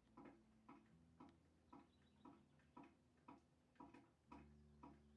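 Faint, even ticking, about two ticks a second, over low held tones that change about a second in and again near the end.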